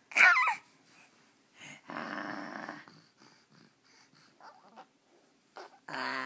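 A baby making raspy, growling zombie noises: a short high wavering squeal at the start, a breathy growl about two seconds in, and another voiced grunt near the end.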